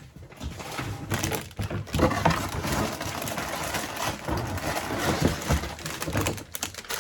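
Plastic Lego parts bags crinkling and rustling as they are handled, with the loose pieces inside shifting, a steady run of crackling.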